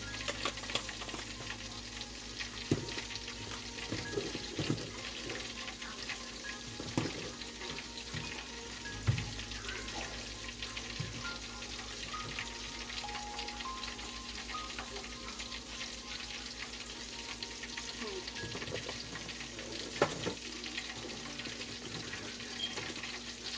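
Steady crackling sizzle of food cooking on the stove, with a few soft knocks here and there.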